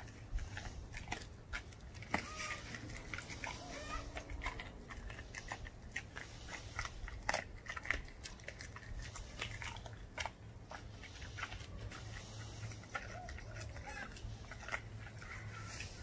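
German shepherd puppy chewing a raw chicken quarter, the bone crunching and cracking in irregular clicks.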